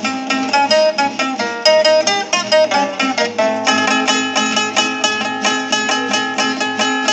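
Dance music played on plucked string instruments: a quick melody of short notes. A little past halfway it settles into a steady, even pulse of repeated notes.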